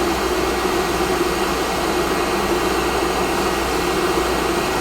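Hot air rework station blowing steadily, a constant rushing hiss with a low hum under it, as it heats the suspected shorted M92T3 USB-C charging IC off a Nintendo Switch motherboard.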